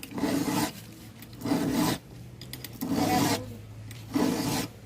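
A file rasping across the cutting teeth of a chainsaw chain to sharpen it, in four even strokes about a second and a half apart.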